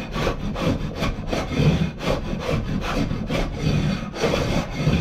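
Hand block plane shaving the edge of a Sapele mahogany board in quick repeated strokes, trimming a little off the top for a fit.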